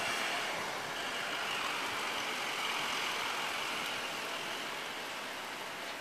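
Steady hiss of rain falling during a thunderstorm.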